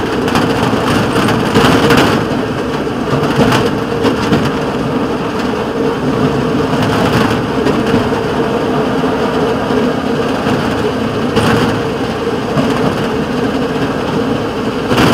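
Rail motorcar (speeder) riding along the track: a steady engine drone under the rumble of steel wheels on the rails, with a few louder clatters.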